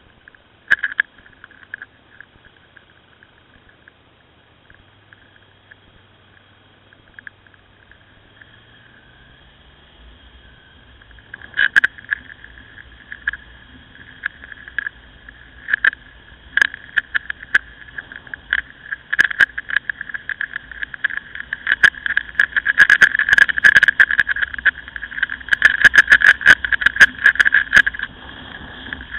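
Ducati Scrambler motorcycle riding on a snowy road, heard through a camera mounted on the bike: a steady hum, with sharp crackling and clicking that starts about a third of the way in and grows denser and louder toward the end.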